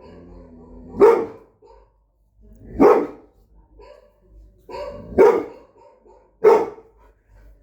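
A dog barking in single loud barks, about four of them, each a second or two apart.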